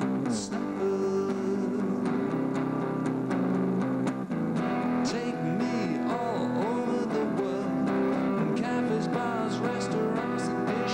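Electric guitar music played live: a steady chord part with melodic notes gliding up and down over it in the middle.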